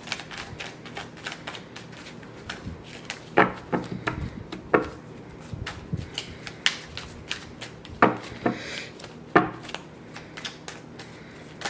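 A deck of oracle cards being shuffled and handled: a run of irregular clicks and taps of card on card, with a few sharper snaps.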